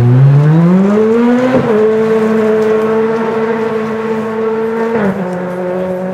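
Rally car engine pulling hard on a gravel stage. The revs climb for about a second and a half, then drop with an upshift and hold nearly steady, with another shift about five seconds in. The sound fades as the car drives away.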